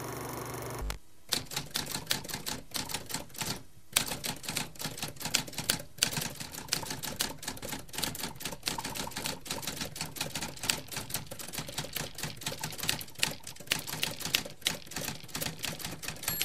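After about a second of steady hum, a manual typewriter's keys clack in fast, uneven strokes, keeping time with text typed out on screen.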